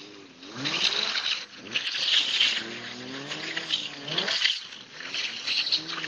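Mazda MX-5's four-cylinder engine revving up and down again and again as the car drifts on snow, its pitch rising and falling in waves. Bursts of hiss from the tyres spinning on snow come about once a second.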